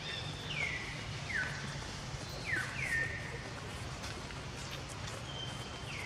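A bird calling: about five short whistles, each sliding down in pitch and then holding briefly, over a steady low hum.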